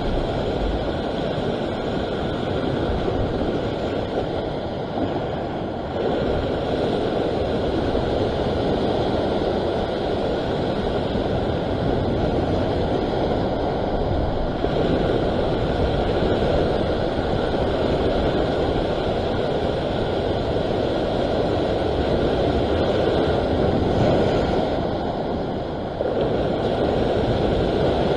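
Ocean surf washing around a rock ledge, mixed with wind buffeting the microphone: a steady rushing noise that jumps abruptly in level a few times.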